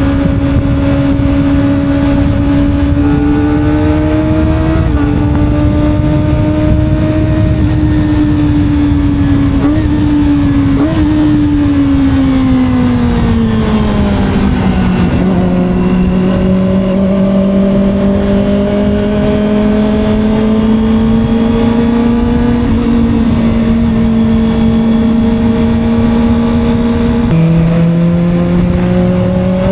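A 250 cc sport motorcycle's engine running at high revs under way, over a low rush of wind noise. About halfway through the engine note falls as the bike slows, then holds steady. Near the end the pitch drops suddenly with a gear change and starts climbing again as it accelerates.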